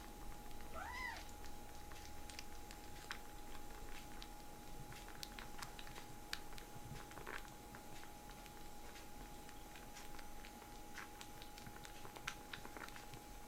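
A kitten gives one short mew about a second in, its pitch rising then falling. After that only faint scattered ticks and a steady faint hum remain.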